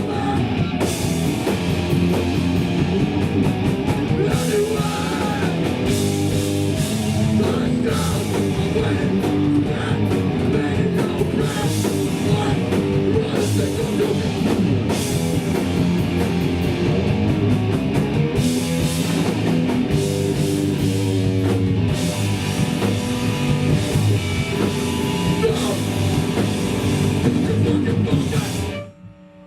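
Hardcore punk band playing live: distorted electric guitars, bass and a pounding drum kit, loud and dense, with the song stopping abruptly about a second before the end.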